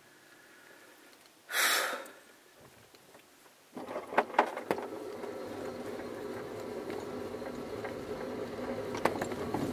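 A glider's take-off ground roll over grass: from about four seconds in, a steady rumble with rattling clicks from the wheel and airframe that slowly grows louder as the glider starts to move. About a second and a half in, a single short loud hiss-like burst.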